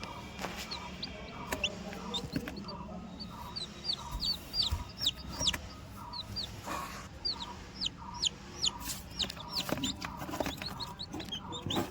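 Baby chicks peeping: many short, high, falling cheeps in quick succession.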